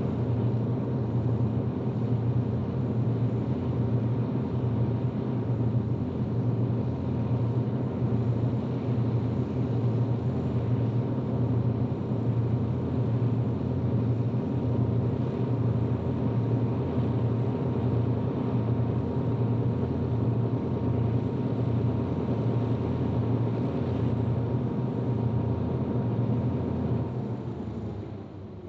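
Several NS 2400-class diesel-electric locomotives running in multiple, pulling a long train of wagons, with a steady engine drone and a regular low throb. Near the end the engine note falls away.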